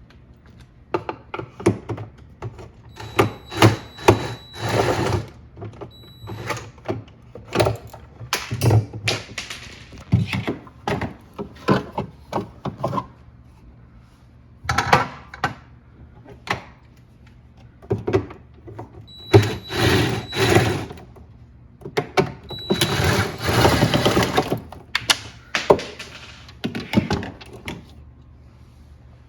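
Irregular clicks, knocks and scraping of parts being handled while a refrigerator's ice dispenser is taken apart. There are a few longer rasping stretches, about 4 seconds in, around 20 seconds and around 24 seconds.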